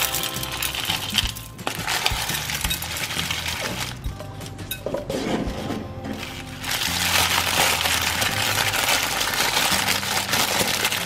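Small pebbles poured from a paper cup, clattering into a glass bowl, then a clear plastic wrapper crinkling as it is handled and opened from about two-thirds of the way through, over background music.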